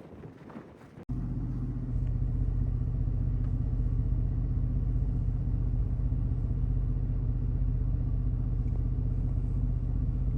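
Steady low rumble of a vehicle engine idling, heard from inside the vehicle; it starts abruptly about a second in.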